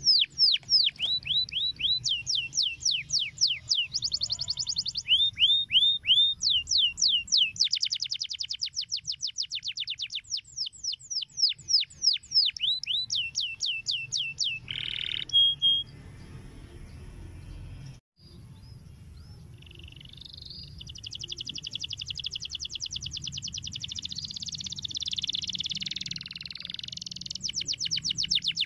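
Domestic canary singing: long tours of rapid, repeated down-sweeping whistled notes, broken by a short pause about halfway through, then a denser, buzzier trill before the fast tours return near the end.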